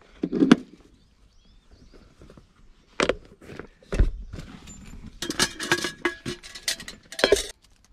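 Handling noises: a few sharp clicks and a dull knock about four seconds in, then a couple of seconds of dense crackling as a large plastic water bottle is handled.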